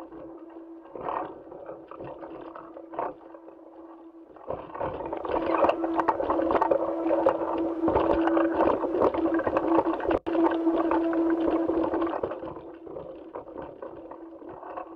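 Noise recorded by a spacewalking astronaut's suit-mounted camera: a steady hum under scraping and rustling as the astronaut moves. There are a couple of knocks in the first few seconds, and the rustling grows much louder from about four and a half seconds in, then fades back down near the end.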